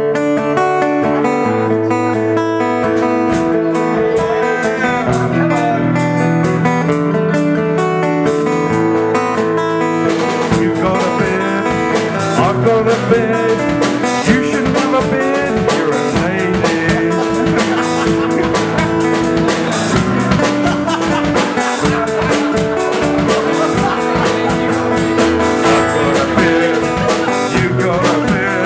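Live band playing a blues-tinged instrumental intro: guitar over a bass line, the sound filling out with drums from about ten seconds in.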